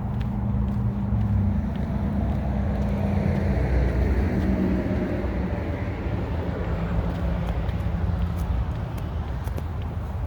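Highway traffic on the Interstate 91 overpass: a steady rumble of tyres and engines, swelling as a vehicle passes about four seconds in.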